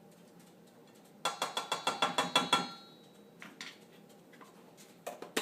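Kitchen utensil clinking rapidly, about a dozen quick ringing clicks over a second and a half, followed by a few fainter clicks and one sharp click near the end.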